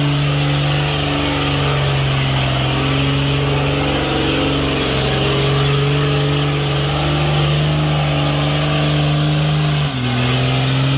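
IFA truck's diesel engine running hard under load at a steady pitch as it climbs. About ten seconds in, the engine note drops abruptly to a lower pitch.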